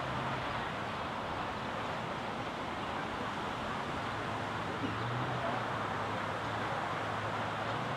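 Steady outdoor ambience by a city park lake: an even hiss of distant water and city noise, with faint far-off voices and a faint low hum that comes and goes.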